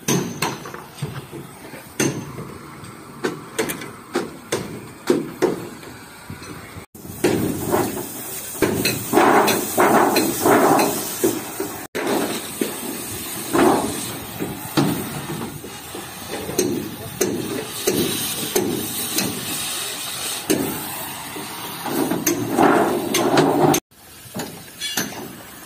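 Irregular metal banging and clanging: hammer blows on the steel body and framing of a bus being broken up for scrap, coming in quick clusters of strikes.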